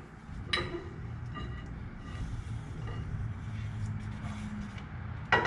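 Two-piece rear axle shaft of a Jeep CJ7's AMC 20 axle being slid out of the housing by hand: light metallic clinks and scraping, with a sharp metal clank near the end. A steady low rumble runs underneath.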